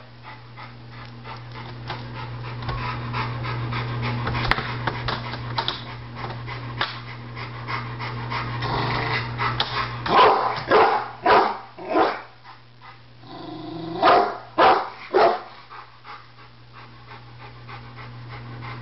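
Rottweiler barking warily at an unfamiliar small kettle grill: a steady low hum for the first half, then a run of short barks about halfway through and a few more a few seconds later.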